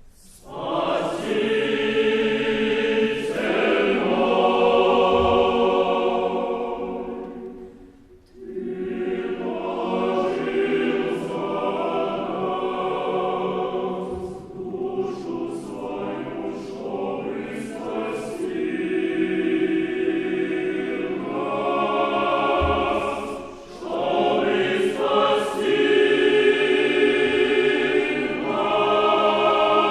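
Mixed choir singing in long held phrases, breaking off briefly about a quarter of the way in and again about three-quarters through.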